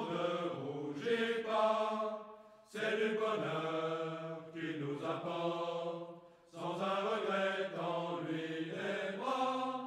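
Background music of slow, chant-like singing: long held notes that glide in pitch, sung in phrases with short breaks about two and a half and six and a half seconds in.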